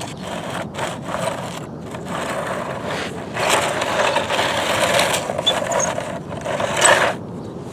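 Toy construction vehicle pushed through sand and dirt: a scraping, crunching noise that gets louder from about three seconds in and drops off shortly before the end.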